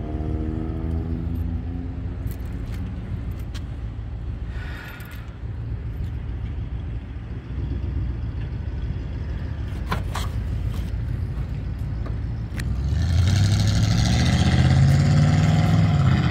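Car exhaust at the tailpipe with the engine idling, a steady low hum. About 13 seconds in the engine is revved: it gets louder and its pitch climbs slowly for a few seconds.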